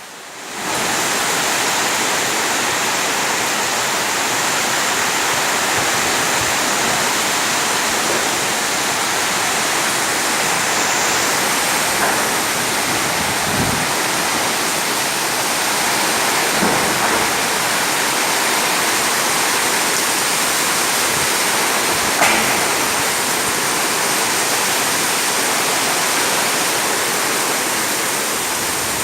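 Heavy rainstorm with strong wind: a loud, steady rush of torrential rain, with a few faint knocks.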